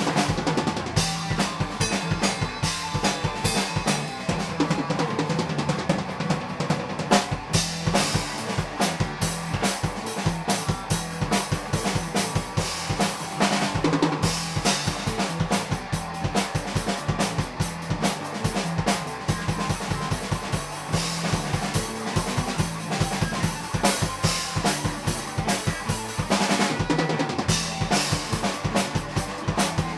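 Music with a fast, busy drum kit, kick drum and snare hits, over a steady low line.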